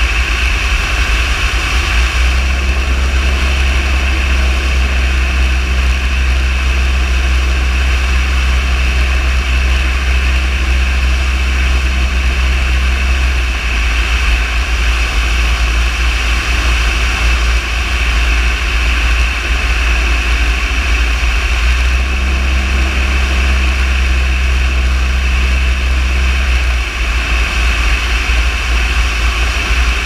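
Steady drone of an aircraft engine and propeller in flight. A deeper hum comes in and drops out twice.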